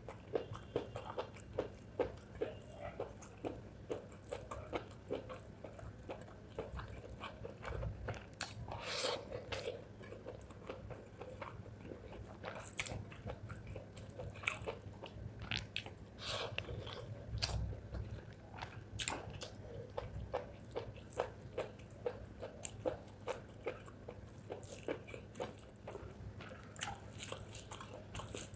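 Close-miked eating of spicy chicken gizzard with rice: chewing with frequent wet mouth clicks and smacks, several a second, and a few louder crunchy bites.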